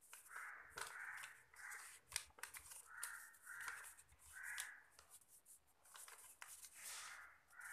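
Faint crow cawing in three series of three caws each, with soft crinkles and clicks of paper being folded by hand.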